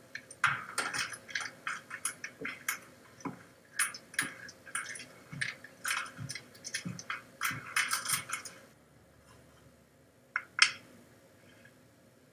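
Wooden Scrabble tiles clicking and clattering as a hand stirs them face-down in the box lid, a quick irregular run of small clicks that stops about nine seconds in. Two sharper clicks follow a second or so later.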